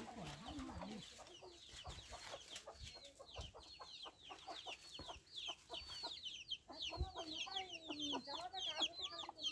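Chickens clucking, with many short, high, falling chirps in quick succession.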